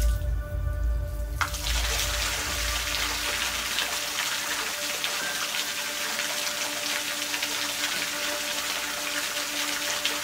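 Dancing fountain's water jets spraying and splashing: a steady rush of water comes in about a second and a half in and keeps on. A deep low boom opens it, and sustained music tones sound underneath.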